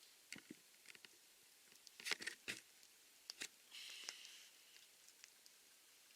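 Campfire wood crackling, with scattered sharp pops and snaps, the loudest cluster about two seconds in, and a brief hiss about four seconds in.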